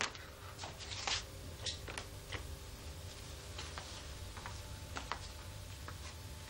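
A door opening, then a person's light footsteps with scattered small clicks and knocks, over a low steady hum.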